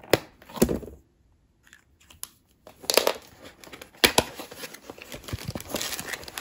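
Packaging being handled and opened by hand: a few sharp clicks and knocks, then a stretch of crinkling and rustling of paper and plastic wrapping near the end.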